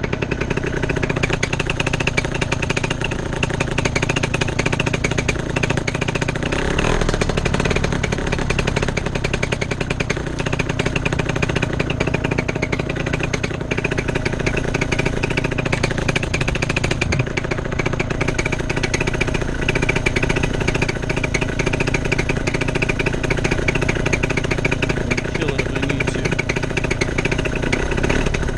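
Paramotor engine running steadily on the pilot's back, with a fast, even firing rhythm and no revving.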